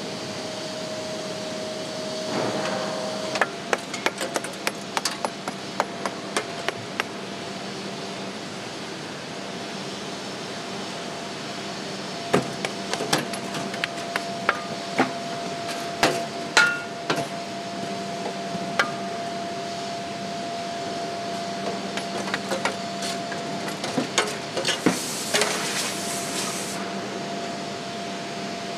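Irregular clusters of sharp metal knocks and clanks as a sand-cast aluminium engine block is worked in a hand-wheeled fixture, with a steady machine hum underneath. A short hiss comes near the end.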